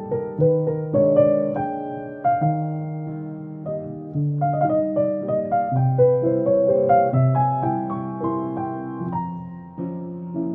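Background piano music: a melody over chords, each note struck and then fading.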